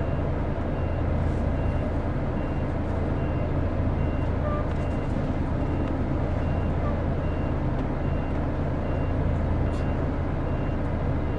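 Mercedes-Benz O-500RS coach's diesel engine running steadily at low revs, heard from on board, with a high electronic beep repeating about twice a second over it.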